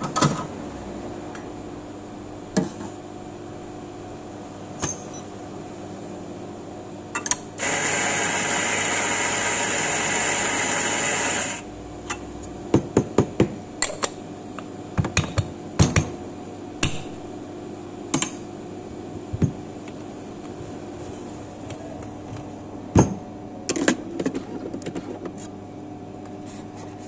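Electric coffee grinder running for about four seconds, grinding an espresso dose. After it come a run of sharp metal knocks and clicks as the metal dosing cup and portafilter are tapped and handled.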